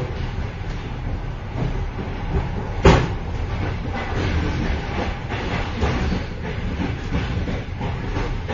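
Rumble and clatter inside the vestibule of a moving train, with loose rattles and a sharp metallic bang about three seconds in.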